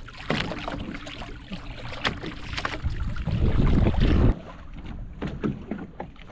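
Water splashing as a hooked giant trevally thrashes at the surface beside the boat and is grabbed by hand. About three seconds in there is a loud low rumble lasting about a second that cuts off suddenly.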